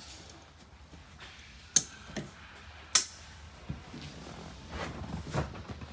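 Two sharp clacks a little over a second apart, then softer knocks and rustling: a fold-down RV chair being folded forward into a bed, its hinges and support leg clicking into place.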